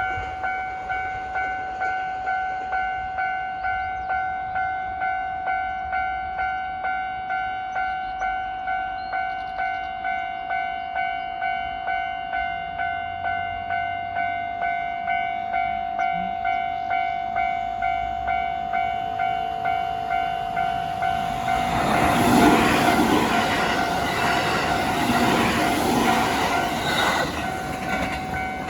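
Japanese level-crossing warning bell dinging steadily, about one and a half strikes a second, with the barriers down. About 21 seconds in, a local passenger train rushes through with rail clatter that drowns the bell for a few seconds and then fades, while the bell keeps ringing.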